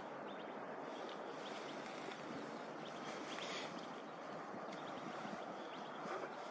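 Steady outdoor background noise with faint, short bird chirps scattered through it.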